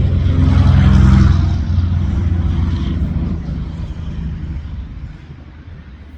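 Engine of a passing motor vehicle, a low steady drone that is loudest about a second in and then slowly fades away.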